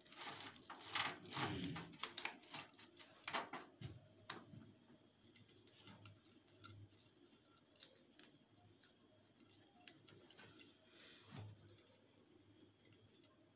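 Light clicks and rustles of hands working on inverter wiring, handling a cable in corrugated plastic conduit. Busy for the first few seconds, then only scattered clicks.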